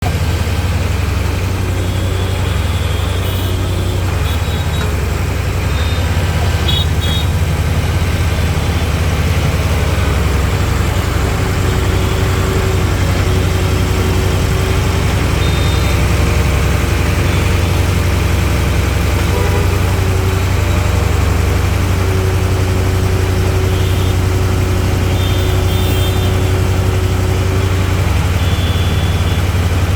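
Skid steer's engine running steadily with a constant low hum. A higher steady whine joins about a third of the way in and stops shortly before the end.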